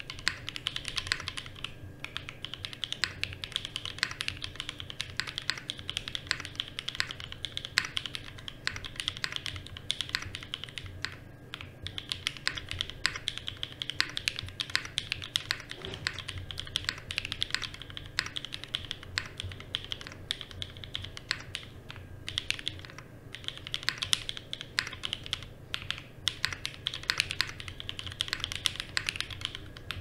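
Ozma60 aluminium 60% top-mount mechanical keyboard being typed on steadily, a fast, continuous run of key clacks with only brief pauses.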